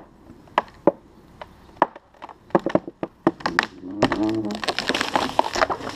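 Cut Lawson cypress trunk cracking and tearing at the saw cut as it starts to tip: sharp cracks that come faster and faster, building into a dense crackle with a short creaking groan of splitting wood in the last two seconds.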